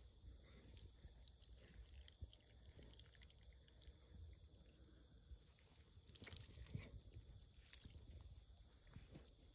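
Near silence: a faint low rumble, with a few soft rustles and clicks about two-thirds of the way in.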